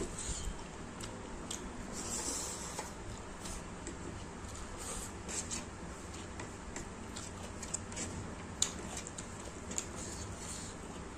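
Fingers squeezing and mixing boiled white rice with dal against a plate: soft squishes and many small, irregular clicks.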